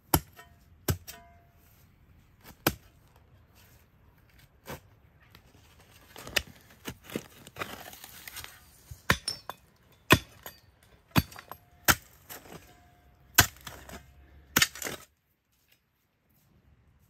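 Hand digging in stony soil: about a dozen sharp, unevenly spaced blows of a digging tool, some with a clink off stones, and a rattling pour of loose soil and gravel partway through. The last two seconds are near silence.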